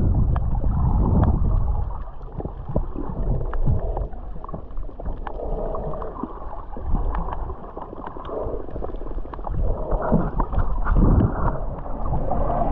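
Underwater sound picked up by a camera held underwater: a muffled low rumble of moving water, with scattered sharp clicks and crackles throughout.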